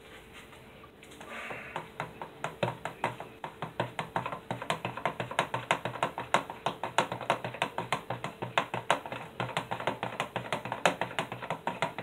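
Metal spoon stirring thick blended juice in a plastic blender jug, clicking quickly and steadily against the jug's sides, several clicks a second, starting about a second in.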